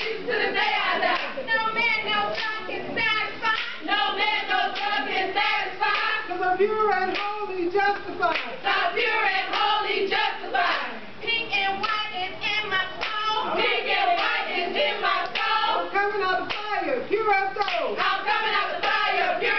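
Group of women's voices chanting and singing in unison, with sharp hand claps keeping the rhythm throughout.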